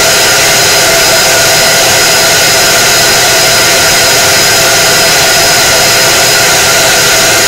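K-40 laser cutter running while it engraves a cup: a loud, steady whir with a few steady tones over it.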